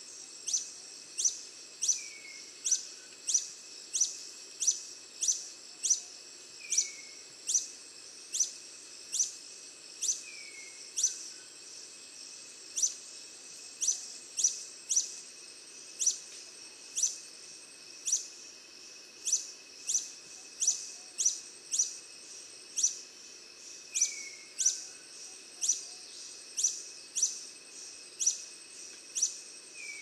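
Hummingbird calling: sharp high chips repeated about three every two seconds, with a short downslurred note every few seconds, over a faint steady high whine.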